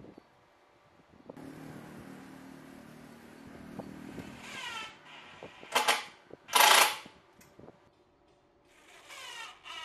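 Cordless impact driver driving self-drilling screws through the steel frame into the wooden tabletop. The motor runs steadily for about three seconds and winds down, then two short, loud bursts of hammering follow as a screw seats, and the motor starts up again near the end.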